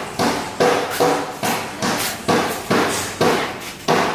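Steady, rhythmic striking blows, about two to three a second, each a sharp hit with a short ringing decay, like hammering or chopping.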